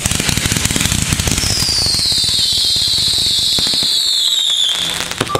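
Consumer fireworks going off in rapid crackling pops, with a high whistle that slowly falls in pitch from about a second in until near the end.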